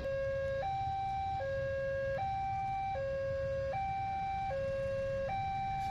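Railway level-crossing warning alarm sounding from its pole loudspeaker, alternating steadily between a low and a higher tone, each held a little under a second, as a train passes. The low rumble of the passing train runs underneath.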